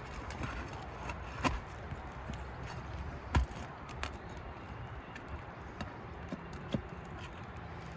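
Scattered sharp clicks and knocks, the loudest about three and a half seconds in, as a roofing nail is pried out from under an asphalt shingle with a hand tool.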